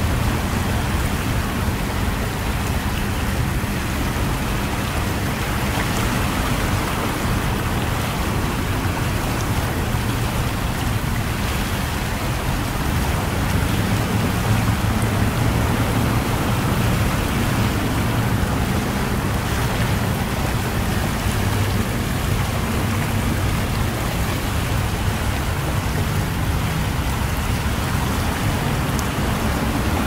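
Seawater rushing and churning through a lagoon's inlet channel as the tide comes in, a steady rush of water.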